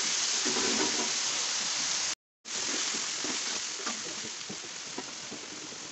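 Blended chilli paste sizzling in hot oil in an aluminium wok, with small taps and scrapes of a metal spatula stirring it. The sound drops out briefly a little after two seconds and the sizzle is somewhat fainter afterwards.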